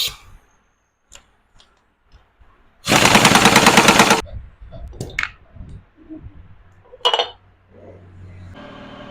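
Impact wrench hammering for just over a second, loosening the nut that holds the magneto flywheel on a Honda CG125 engine. Sharp metal clanks of tools come before and after it.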